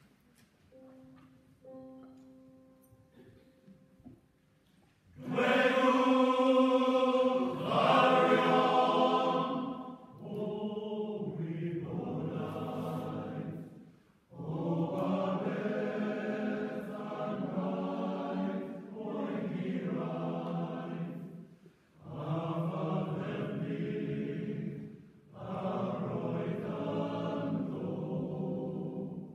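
Male voice choir singing in phrases that start about five seconds in, with short breath breaks between them. The first phrase is the loudest. A few faint steady notes sound beforehand.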